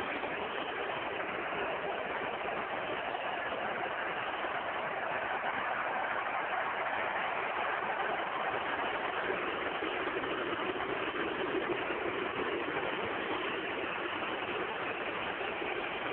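Steady crowd noise from a packed football stadium, a continuous din of many voices that swells a little in the middle.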